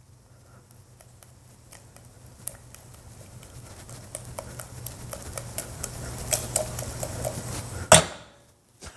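Cranberries and sugar crackling and rattling in a stainless steel saucepan as it is swirled over a gas burner, the small clicks growing denser and louder over a low steady hum. Near the end the pan clanks down once onto the stove grate.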